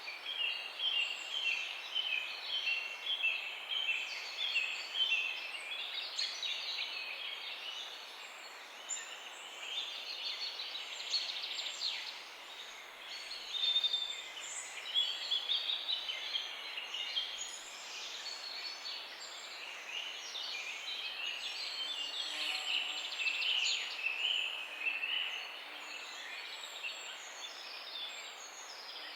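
Many small songbirds chirping and singing over one another in a morning chorus, against a steady background hiss. A quick run of repeated chirps stands out in the first few seconds.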